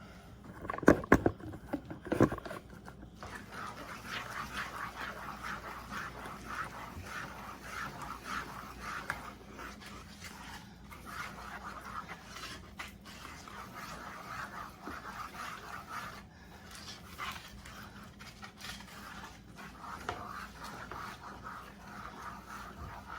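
A spoon stirring the hot praline sugar mixture in a bowl, scraping round and round in a steady rhythm, after a few knocks about a second in.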